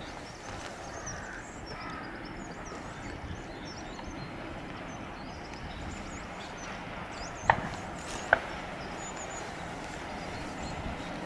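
Faint, steady rumble of a diesel locomotive approaching in the distance, with small birds chirping. About two-thirds of the way through come two sharp knocks, under a second apart.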